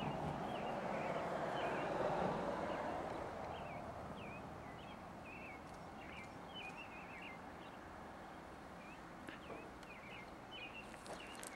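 Small birds chirping in short, quick calls again and again, over a steady rushing background noise that swells during the first few seconds and then eases off. A few faint clicks near the end.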